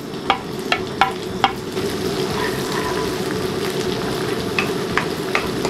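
Chopped green onion, garlic, ginger and dried chillies sizzling in hot chilli oil in a wok as they are stir-fried with a wooden spatula. The sizzle is steady, with scattered sharp clicks, most of them in the first second and a half.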